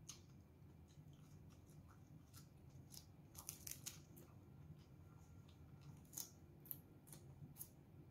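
Faint, crisp crunches of raw leafy greens being bitten and chewed close to the microphone, coming in scattered clusters.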